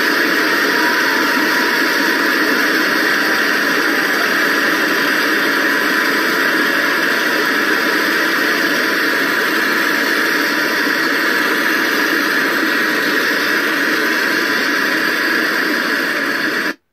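Steady, even noise from the 1959 live LP recording, with no music in it, cutting off suddenly near the end.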